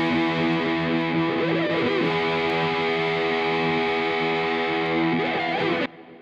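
Background music of distorted guitar playing long held chords, which cuts off abruptly near the end and leaves a short fading ring.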